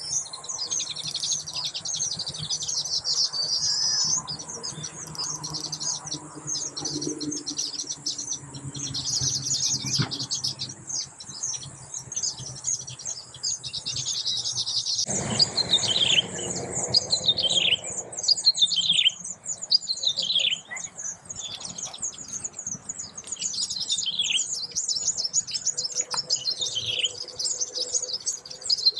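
Weaver birds chattering in a dense, high twittering chorus. About halfway through the sound changes to a run of short downward-sliding whistled notes, roughly one a second, over softer chatter.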